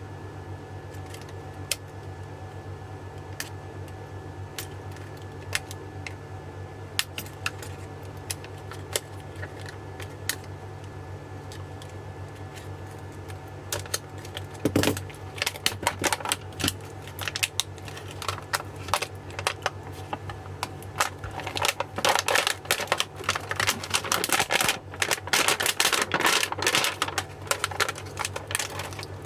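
Heat-shrink wrap being cut and peeled off a lithium e-bike battery pack: scattered sharp clicks and crackles of the blade and stiff plastic. They become busier about halfway through and are densest in the last third, over a steady low hum.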